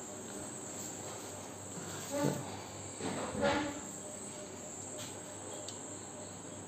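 Crickets chirring steadily in the background. Two short, louder, voice-like sounds come about two and three and a half seconds in.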